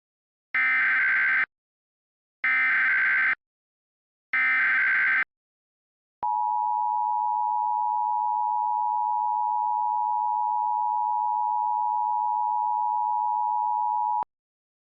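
Emergency Alert System SAME header: three identical warbling data bursts of about a second each, followed by the EAS two-tone attention signal, a steady dual tone held for about eight seconds before it cuts off. These tones announce the start of an emergency alert.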